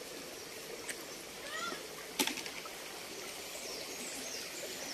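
Shallow forest stream running over rocks, with a sharp knock about two seconds in and a few short bird chirps.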